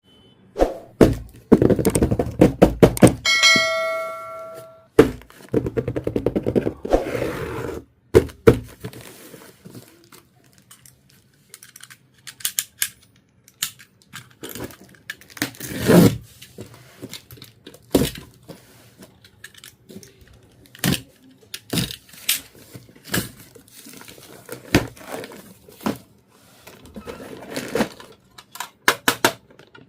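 Miniature plastic toy pieces and their packaging being handled: scattered taps, clicks and crinkles, with a short bright chime about four seconds in.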